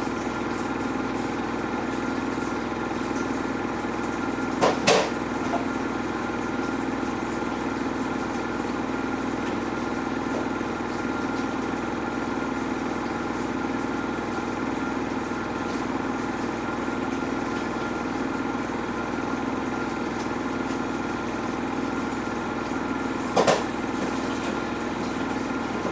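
Samsung front-loading washing machine running mid-cycle: a steady motor hum and whine from the turning drum. Twice there is a short double thump, the load of trainers wrapped in a dressing gown knocking against the drum.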